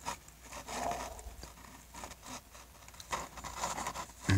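A fork cutting through soft cake and scraping and tapping against a takeout container, with scattered small clicks and rustles.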